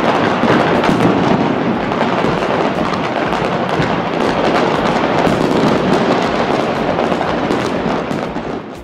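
Fireworks and firecrackers set off all over a city at once: a dense, unbroken din of overlapping bangs and crackles that fades out right at the end.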